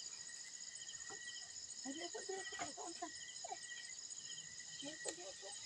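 Insects, crickets, chirping in a steady high pulsing chorus, with faint voices talking now and then.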